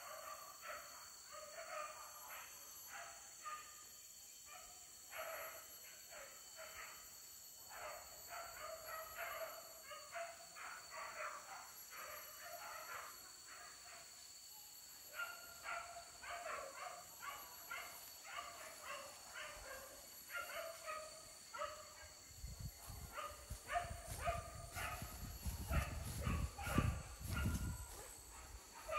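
Hunting dogs barking and yelping again and again, fairly faint, several barks a second at times. Near the end a low rumble on the microphone joins in.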